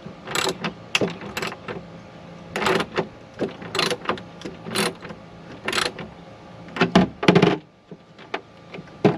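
A hand tool turning a bolt with a lock washer and flat washer down tight, giving short clicks and scrapes about once a second, with a longer, louder one about seven seconds in.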